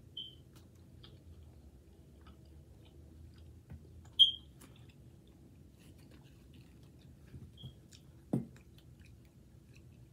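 Quiet chewing of noodles, with small mouth clicks. Three short high-pitched chirps sound over it, the loudest about four seconds in, and a dull thump comes near the end.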